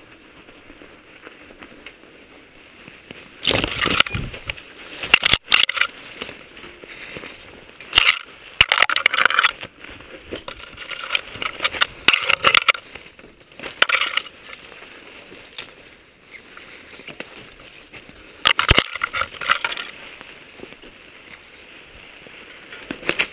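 Mountain bike going through snow and brush: irregular bursts of crunching and scraping as tyres break through the snow and branches brush past the bike and helmet camera, with a sharp knock about five seconds in.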